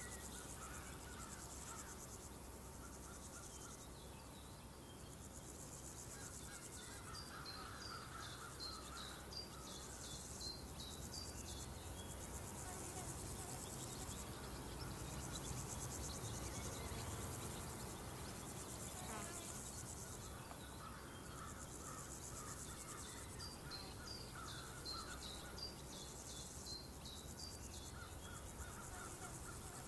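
Rural field ambience of crickets and other insects chirping in a steady, pulsing high drone, with two runs of quick high bird chirps, about eight seconds in and again about twenty-three seconds in.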